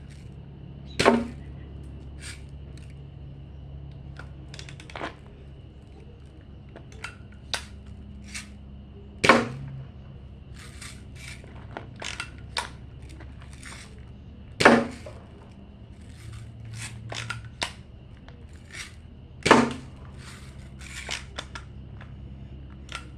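Four sharp shots from a lever-action gun, several seconds apart, with smaller clicks and knocks between them as the gun is worked and handled.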